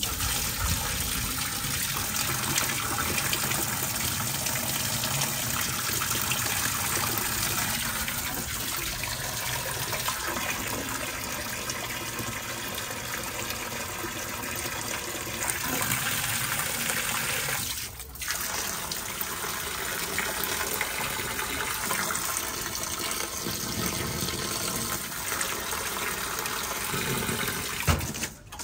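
Tap water running steadily and splashing, briefly interrupted about eighteen seconds in, then shut off at the very end.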